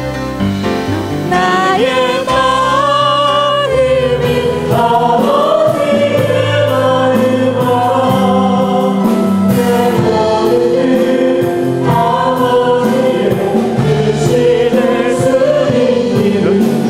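Mixed male and female voices of a small church praise team singing a gospel song with long held notes, over band accompaniment with steady cymbal strokes.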